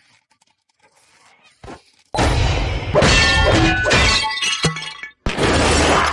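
Sound effect of glass smashing: a long, loud crash of breaking glass with ringing shards starting about two seconds in, then a second crash near the end.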